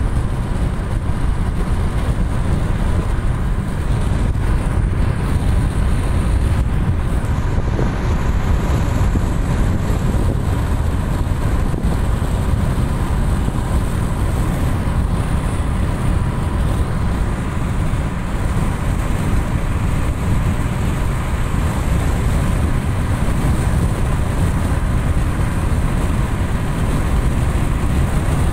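Steady road noise of a car driving on a highway, heard from inside the car: an even, constant low rumble.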